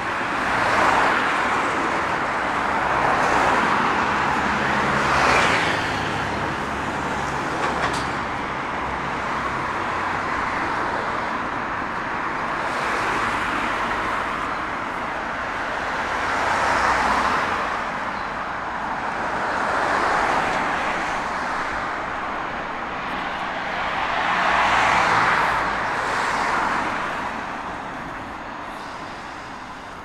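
Road traffic: cars passing one after another, each swelling and fading, with a lower engine hum from a heavier vehicle under some passes. The traffic thins out near the end.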